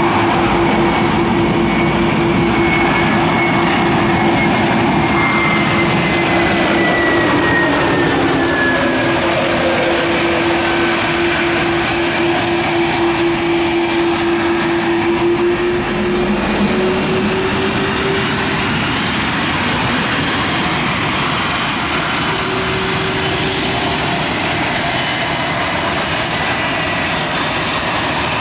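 Airbus A321neo's Pratt & Whitney geared turbofan engines running as the airliner comes in low on approach and lands. A loud, steady roar with a low hum, and a higher whine that falls in pitch as the aircraft passes; the sound shifts briefly a few seconds after touchdown.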